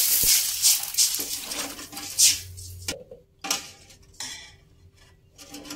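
Water poured into a stainless-steel wok over hot fried spice paste, splashing and sizzling for about three seconds. Then a metal ladle scrapes and knocks against the wok a few times as the broth is stirred.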